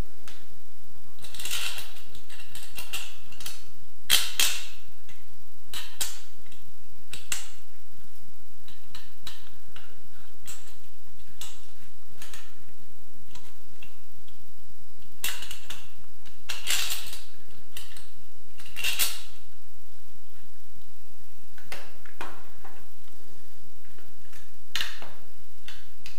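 Chrome rail and its clear plastic dish being handled and fitted into a wall bracket: scattered clicks, taps and short scrapes of metal and plastic, coming in small clusters with pauses between.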